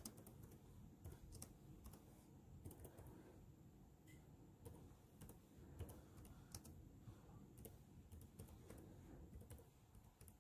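Faint typing on a laptop keyboard: irregular key clicks as a search phrase is typed out.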